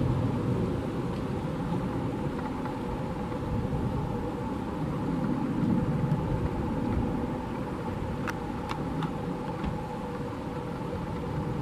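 Airbus A380's four Engine Alliance GP7200 turbofans on final approach at low thrust: a steady rumble with a steady hum tone running through it.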